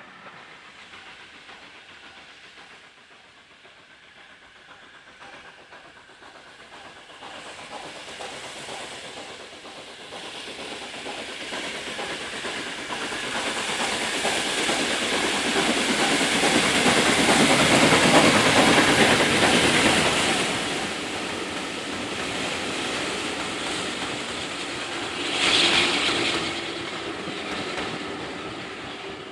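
Austerity 0-6-0ST saddle tank steam locomotive working a train of coaches past, the engine and the coaches' wheels on the rails building up as it approaches, loudest a little past halfway, then fading as the coaches run by. A short louder burst comes near the end.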